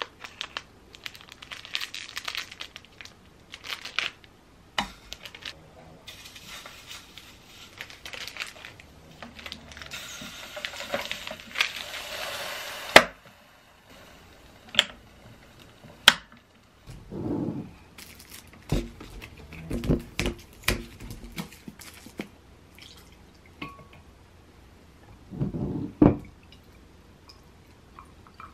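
Thin plastic wrapper crinkling and tearing as rice-cake sticks are unwrapped, ending in a sharp click about 13 seconds in. After that come scattered clicks and knocks from a plastic waffle maker's lid and handle being worked.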